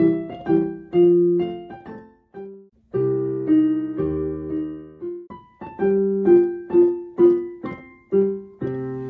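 Piano playing short, bouncy chord phrases, each note struck and fading, with brief pauses between phrases: a sound-effect accompaniment for acting out The Three Little Pigs.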